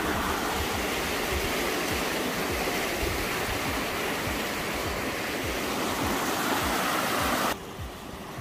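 Mountain stream rushing over rocks, a steady wash of water that drops sharply quieter about seven and a half seconds in.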